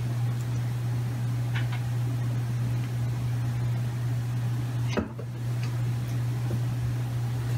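A steady low electrical hum, with a few faint taps and one sharp knock about five seconds in as a tabby cat pounces onto a cat lying on the wooden floor.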